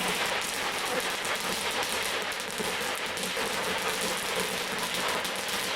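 Fireworks crackling in a dense, steady patter of tiny pops, with no single loud bang.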